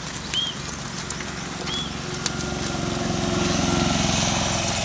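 A small pickup truck's engine passing on the road, growing louder over the last two seconds. Two short bird chirps come about half a second and two seconds in.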